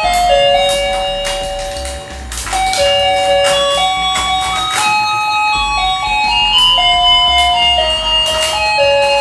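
Rotating musical fishing game toy playing its electronic jingle: a simple chiming tune of single notes stepping up and down, with scattered short clicks.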